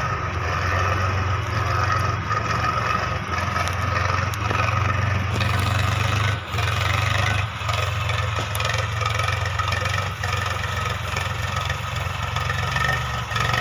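Tractor engine running steadily while plowing a field, with a short dip in level about six seconds in.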